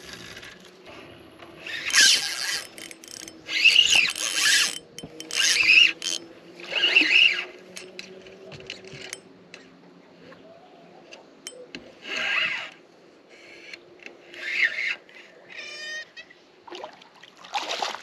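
Short irregular splashes and rustles while a bass is hooked and fought from a boat. Near the end a spinning reel's drag gives a brief burst of rapid clicking, over a faint steady motor hum.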